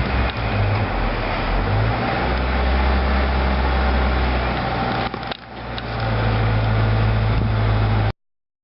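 Freight train cars of an automotive and intermodal train rolling past, a steady deep rumble with rattling, dipping briefly about five seconds in. The sound cuts off abruptly near the end.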